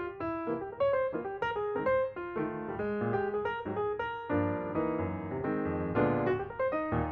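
Background piano music: a run of single notes, then fuller chords from about four seconds in.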